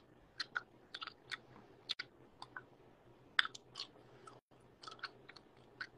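Gum being chewed with the mouth close to a phone's microphone: irregular wet smacks and clicks, a few a second.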